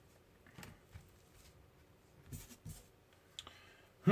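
Quiet handling sounds on a work surface: a few faint clicks, then two light knocks a little after two seconds in, and a louder knock right at the end.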